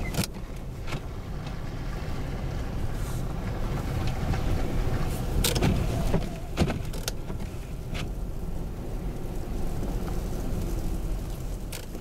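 Blizzard wind buffeting the glass in a steady low rumble. A few sharp clicks and knocks land against it, twice close together a little past the middle.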